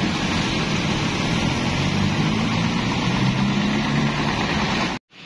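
Diesel engine of a bare Hino RK truck chassis running steadily as the chassis drives past on a wet road. The sound cuts off abruptly near the end.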